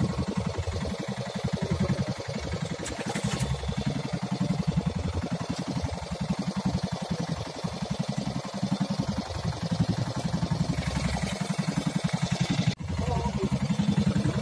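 Fishing boat's engine running at a steady, fast, even chug.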